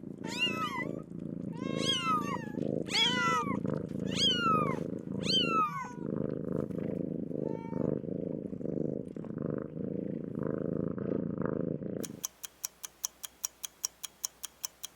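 Kittens mewing, about half a dozen high falling mews in the first six seconds, over steady purring that carries on alone until the sound cuts off abruptly. Then a steady ticking, about three ticks a second, like a countdown timer.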